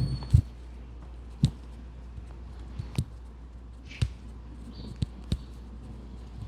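A series of about six short, sharp cracks roughly a second apart, two of them close together near the end: joints popping as the spine and neck are adjusted by hand.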